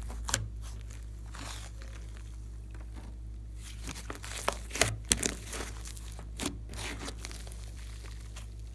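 Hands kneading and stretching a thick slime mixed with clay and glitter. It gives irregular sticky crackles and pops, with a cluster of sharper pops about five seconds in.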